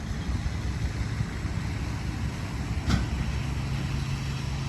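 Steady low rumble of a running engine, with a single sharp click about three seconds in, after which a steady low hum sets in.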